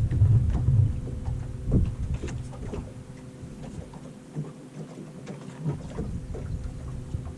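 Wind buffeting the microphone on a slow-trolling fishing boat, with scattered small knocks and taps of water and gear against the hull and a faint steady hum. The wind rumble eases off after about a second and drops away almost entirely around the middle.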